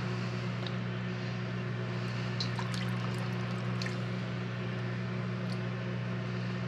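Hands sorting through halved ripe apricots in a metal pan: a few soft, wet handling sounds and faint clicks over a steady low hum.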